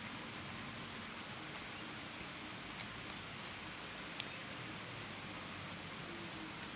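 Steady rain falling, an even hiss, with a couple of sharp drip ticks near the middle.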